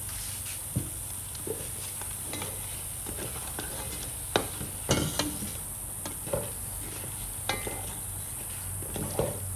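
A spoon stirring potatoes and curry seasoning in a pot, with scattered knocks and scrapes against the pot over a faint frying sizzle.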